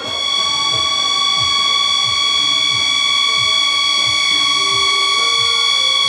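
Music: one high note held steadily and loudly over a moving lower melody and a regular low drum beat.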